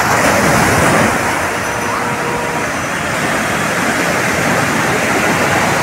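Rough sea surf breaking on the shore: a steady rush of waves that swells about a second in.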